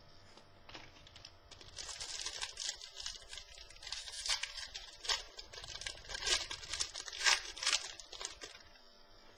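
Trading-card packs and cards being handled, a crinkling, tearing rustle of wrapper and card stock that starts about a second and a half in and stops near the end.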